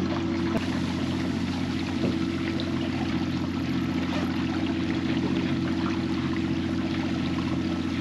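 Boat engine running steadily at a constant pitch, with water rushing past.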